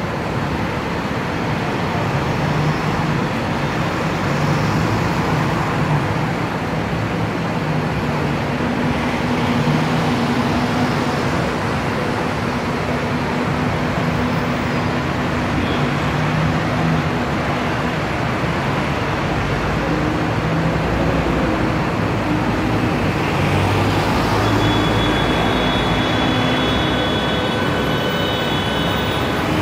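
Busy city street traffic: a steady noise of double-decker buses and cars idling and moving, with a low engine hum throughout. A high-pitched tone sounds for a few seconds near the end.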